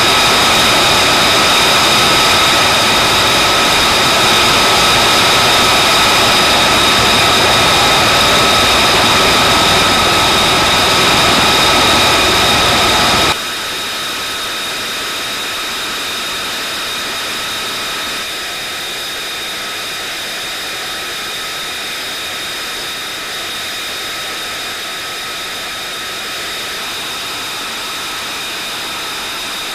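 F-35B Lightning II's jet engine (Pratt & Whitney F135) running with the aircraft stationary: a steady rushing roar carrying a high whine of several held tones. About thirteen seconds in it drops suddenly to a quieter level and runs on steadily, the whine still there.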